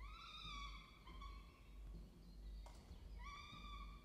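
Peregrine falcons calling in the nest box: three drawn-out, clear whining notes, each under a second long, the first the longest, with a brief tick between the second and third.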